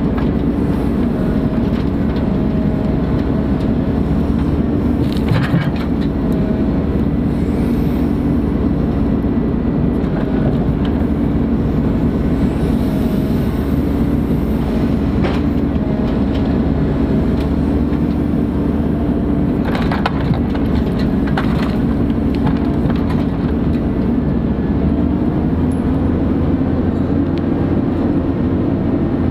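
Ponsse Buffalo forest machine's diesel engine running steadily under work, with a faint whine that comes and goes and a few sharp knocks scattered through, about five of them.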